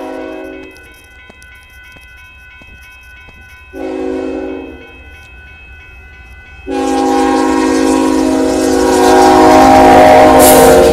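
Union Pacific freight locomotive's multi-chime air horn sounding for a road crossing: the end of one blast, a short blast about four seconds in, then a long blast from about seven seconds in. During the long blast the rush and rumble of the approaching train build up until they are loudest near the end.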